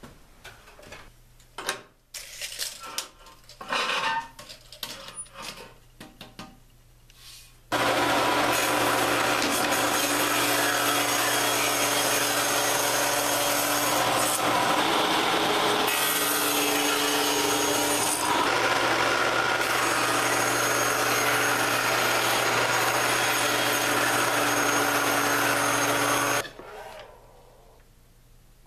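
A few knocks and clatter, then a Rockwell Delta table saw runs and cuts wood steadily for about 18 seconds, with a steady motor hum under the cutting noise, and stops suddenly near the end.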